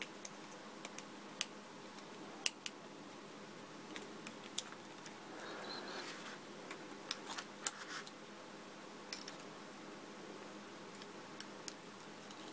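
Small metal parts of a nut-and-bolt construction toy clicking and tapping as a screwdriver and fingers work a bolt through the perforated metal plates: scattered light clicks, a few sharper ones.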